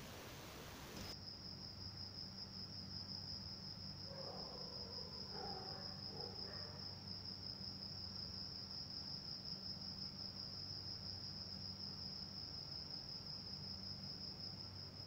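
Faint, steady high-pitched insect trill with a fine pulsing texture, starting about a second in as a hiss cuts off, over a faint low hum.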